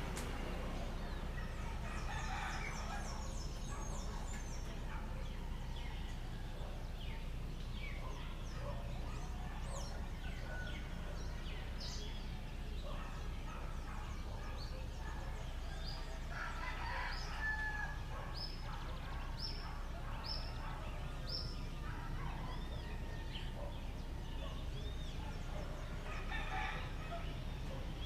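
Roosters crowing, three times: a few seconds in, in the middle, and near the end. Between the crows a small bird repeats short high notes about once a second, over a steady low background rumble.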